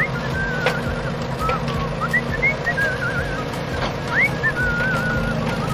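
Whistling: a string of warbling, wavering notes with several quick upward swoops, over a steady low hum.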